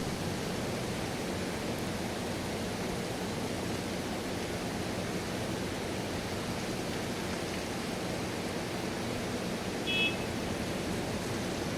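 Steady rain falling, an even hiss. About ten seconds in there is one brief high beep.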